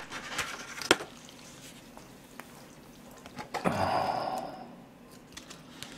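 Chopsticks clicking lightly in the first second, then about four seconds in a slurp of about a second as a mouthful of Chinese-style jajangmyeon noodles is sucked in.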